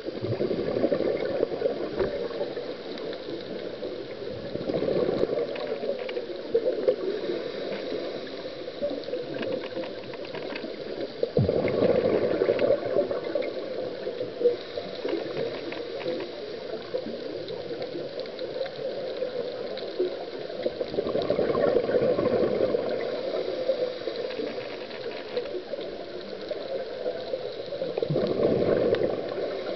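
A scuba diver's exhaled breath bubbling out of the regulator, heard underwater. The bubbling swells into louder surges with each exhalation, every several seconds, and a softer bubbling carries on in between.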